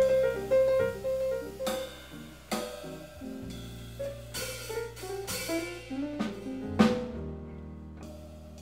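Live jazz piano trio playing: piano, bass and drum kit, with sharp snare and cymbal hits several times over sustained bass notes. About seven seconds in, the drums drop out, leaving piano and bass.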